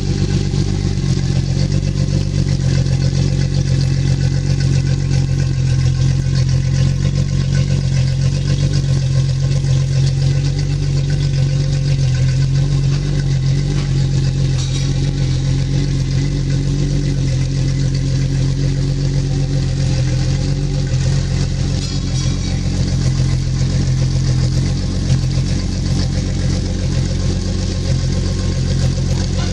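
2004 Mercury 225 EFI four-stroke outboard idling steadily at an even pitch.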